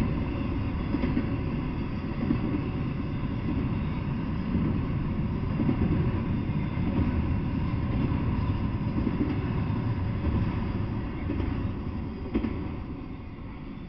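Double-stack intermodal freight train rolling past, a steady rumble of steel wheels on the rails. It fades near the end as the last well car clears.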